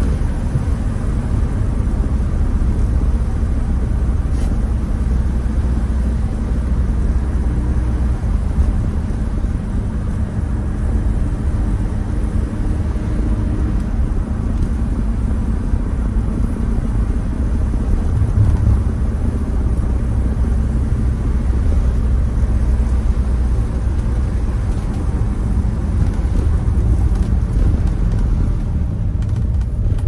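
Steady low rumble of a car driving on a rain-wet road: engine and tyre noise.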